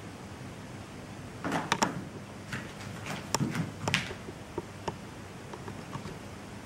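Hands and feet of a person crawling on all fours knocking and scuffing on a smooth studio floor: a cluster of short knocks from about a second and a half in to four seconds, then a few lighter taps, over a steady hiss.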